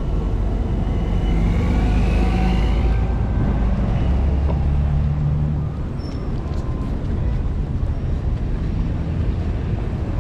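Street traffic: motor vehicle engines running close by with a steady low rumble, louder through the first half. A brief high squeal rises about two seconds in.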